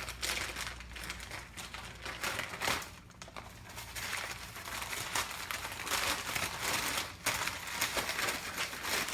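Packing material crinkling and rustling in irregular handfuls, with small knocks, as parts are unwrapped and handled.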